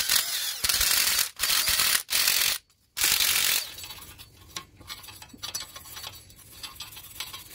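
Cordless drill spinning a wire cup brush against the rusty front wheel hub face, run in four short bursts to scrub off rust before a new brake disc goes on. After that, quieter scraping and light clicks.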